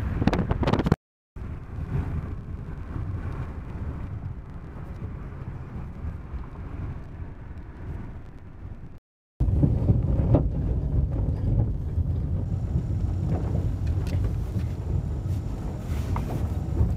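Inside a moving car: wind buffeting through an open window, then steady road noise in the cabin. From about nine seconds in, a louder rumble of tyres on a dirt road.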